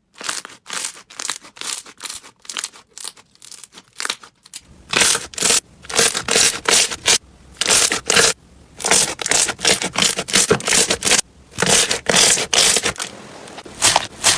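Crunchy slime being squeezed and pressed by hand, crackling in quick repeated bursts. About four and a half seconds in, the crunching turns fuller and louder.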